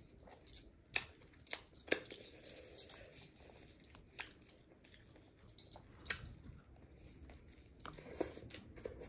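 Close-miked chewing of a Big Mac: irregular soft mouth clicks, frequent at first and then sparser, with another bite taken near the end.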